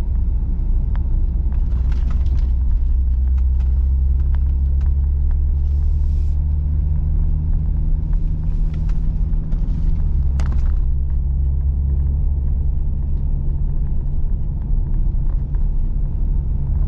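Ford Explorer ST's twin-turbo V6 through a Thermal 3-inch exhaust, heard from inside the cabin while driving: a steady low exhaust note with road rumble. Its pitch drops slightly about ten seconds in.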